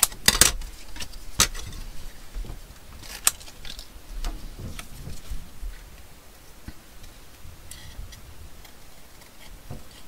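Steel scissors cutting paper: a series of crisp snips, the loudest few in the first three or four seconds, then fainter cutting.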